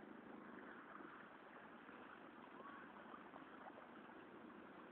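Faint, steady water noise: floodwater sloshing and swishing as people wade through it.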